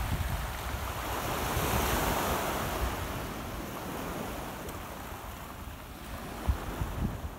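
Small waves washing onto a pebble beach, one surge swelling about two seconds in and then easing, with wind gusting on the microphone.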